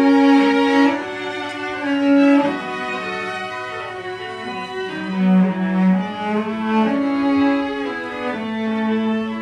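A string trio of violin, viola and cello playing live, with bowed notes held about a second each and a low cello line beneath.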